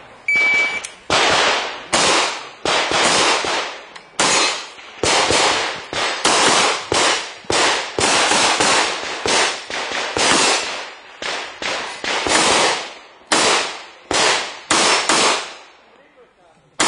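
An electronic shot timer beeps once as the start signal. About two dozen pistol shots follow in a rapid string, singly and in quick pairs, each with a short echoing tail, as the competitor shoots the stage.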